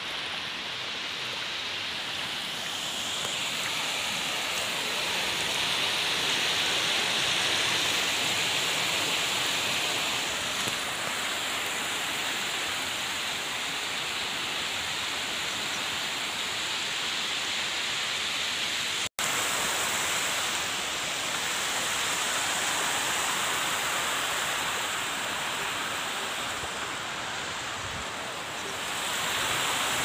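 Waterfall: a steady rush of falling water, cutting out for an instant about two-thirds of the way through.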